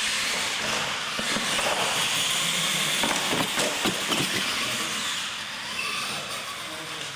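Electric R/C monster trucks running flat out on a concrete floor: a steady, hissy whir of motors, gears and tyres that starts suddenly at the green light, with a few knocks in the middle.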